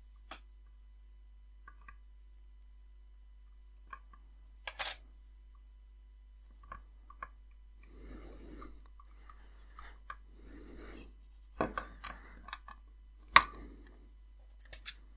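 Close-up hand work stripping a thin stranded cable: light clicks and scrapes of a loose utility-knife blade on the insulation, with a louder metallic clack about five seconds in. Later come two short stretches of soft rustling and a few sharp clicks as the insulation is pulled off and the strands are twisted by hand.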